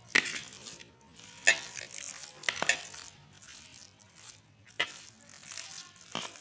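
Kitchen utensils knocking and clinking against a bowl or pan: about six sharp knocks spread unevenly, with quieter scraping between them.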